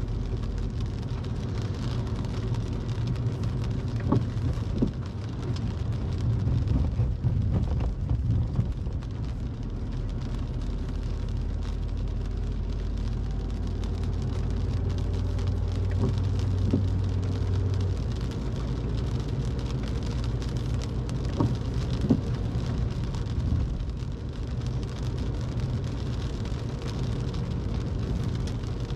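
Car driving on a wet road, heard from inside the cabin: a steady low rumble of engine and tyres under a hiss of rain, with scattered drops tapping on the windshield.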